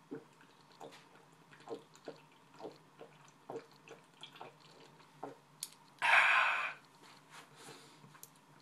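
A man gulping beer from an aluminium can, a run of soft swallows about one or two a second for some five seconds, then a loud breath out about six seconds in as he lowers the can.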